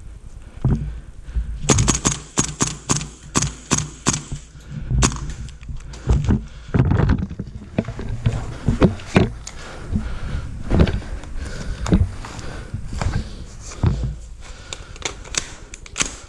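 Airsoft guns firing during close-quarters play: a quick string of sharp shots about two seconds in, then scattered single shots, over low thumps of movement.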